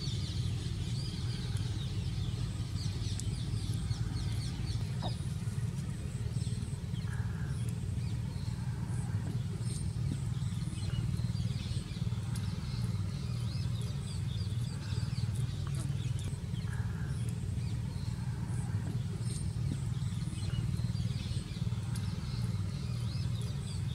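Steady low hum with faint bird chirps scattered over it.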